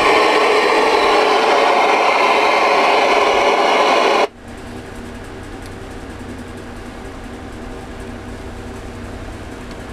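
Stryker SR-447HPC ten-meter radio's speaker hissing loudly with receiver static, which cuts off suddenly about four seconds in, leaving a faint steady hum.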